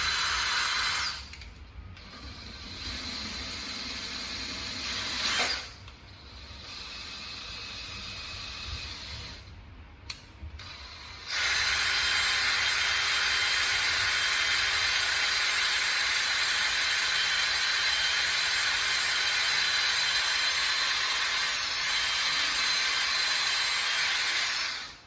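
Battery drill running in several short bursts, then in one long run from about eleven seconds in, its attachment scrubbing at the rusty metal of a small plow to clean it.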